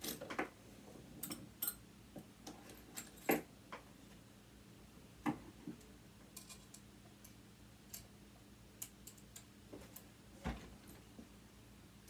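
Irregular small clicks and taps of a hand tool working a screw and handling the sewing machine motor's metal parts, with a duller knock about ten and a half seconds in.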